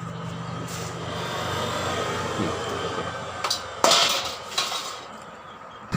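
A low steady hum fading out, then a few sharp knocks, the loudest about four seconds in.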